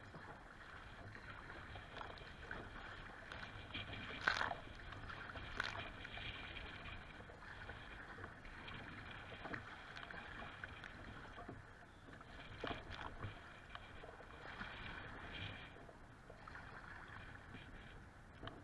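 Choppy lake water splashing and slapping against a kayak's hull as it paddles through rough, wind-driven waves. There are louder splashes about four and five and a half seconds in, and again around thirteen and fifteen seconds.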